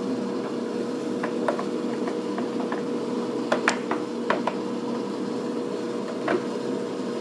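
American Pacemaker engine lathe humming steadily, with a few light metallic clicks as the lever on its headstock is worked.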